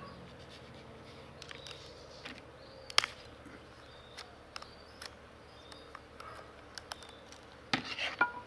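Small metal clicks and scrapes of a screwdriver working a screw on a chainsaw's Walbro carburetor while it is turned in the hand. A sharper click comes about three seconds in, and a short cluster of louder knocks near the end.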